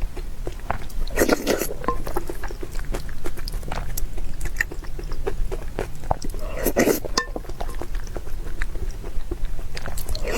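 Close-miked eating sounds: wet chewing with many small mouth clicks, broken by two louder rushing bursts, one about a second in and one near seven seconds.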